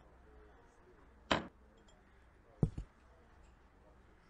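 A faint steady hum, with one short sharp click a little over a second in and a quick pair of dull low thumps later on.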